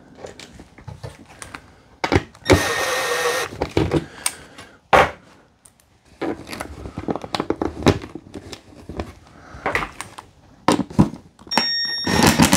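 Office chair bolts being started by hand through the back bracket into the seat: scattered clicks and knocks of metal bolts and hard plastic parts, with a brief rasp about two and a half seconds in. Near the end a cordless drill whines up and starts driving the bolts.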